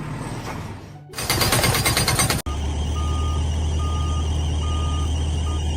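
A fast mechanical rattle of rapid, even strikes for about a second, then, after an abrupt cut, a steady low machine drone with short high-pitched beeps repeating about once a second.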